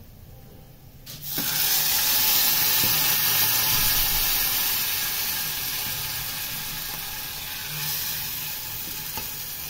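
Fried garlic in hot olive oil tipped into a pot of cooked beans, setting off a loud sizzle about a second in that slowly dies down.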